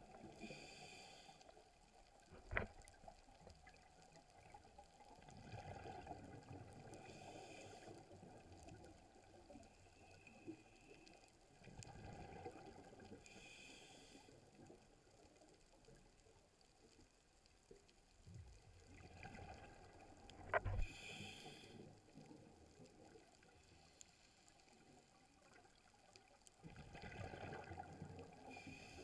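Faint underwater scuba breathing: a regulator hiss and a low gurgling rush of exhaled bubbles, repeating about every six or seven seconds. Two sharp clicks stand out, one a few seconds in and one about two-thirds of the way through.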